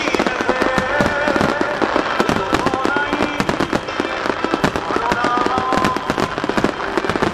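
Dense barrage of starmine fireworks: rapid overlapping bangs and crackling from many shells bursting at once. A sung melody carries on underneath.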